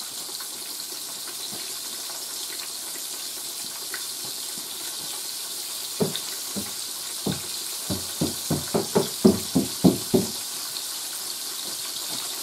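Chicken fried steak frying in a skillet of oil, with a steady sizzling hiss. About halfway through comes a quick run of about a dozen knocks, getting faster, typical of a floured baking pan being tapped to knock out the excess flour.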